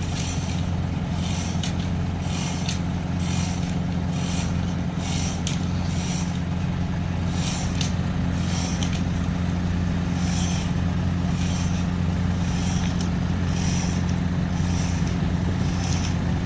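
A boat's inboard engine running steadily with a deep, even drone, with a faint hiss pulsing about one and a half times a second over it. The engine is being run to test the gearbox after the propeller shaft was replaced and the engines serviced.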